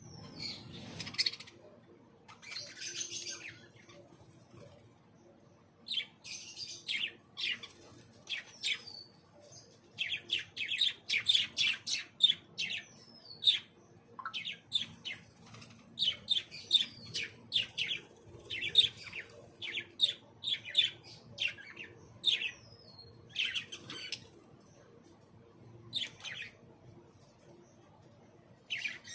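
Small aviary birds chirping and twittering: quick runs of short, high chirps, busiest in the middle stretch, with a few short whistles that slide downward.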